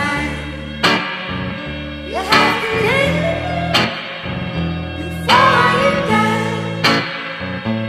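Music: a song with guitar and bass, with a sharp beat about every one and a half seconds.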